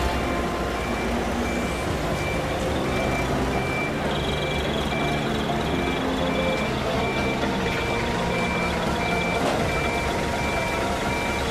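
Compact wheel loader's reverse alarm beeping steadily in evenly spaced beeps as the machine backs along a truck deck, over the low rumble of its engine running.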